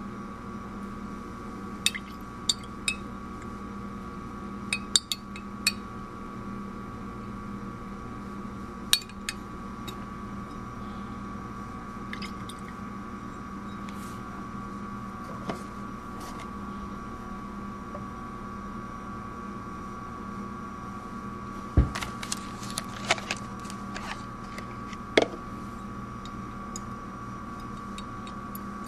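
Glass clinks and taps as a glass Erlenmeyer flask is swirled under a buret tip and handled on the bench during an EDTA titration, over a steady room hum. The clicks come singly through the first part, then a sharper knock and a quick cluster of clinks about three quarters of the way through.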